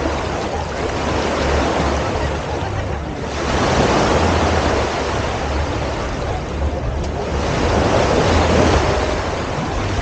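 Small waves washing in on a sandy beach, with wind buffeting the microphone as a steady low rumble; the wash swells twice.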